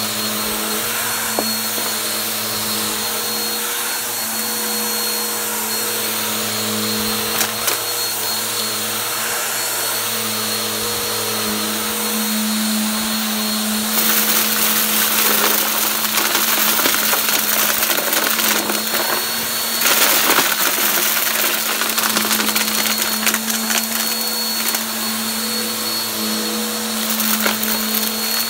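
Bissell PowerForce upright bagless vacuum cleaner running steadily over carpet: a motor hum with a high steady whine. About halfway through it starts picking up a pile of debris, which rattles and clicks up through the clear dirt canister, and the sound turns louder and grittier.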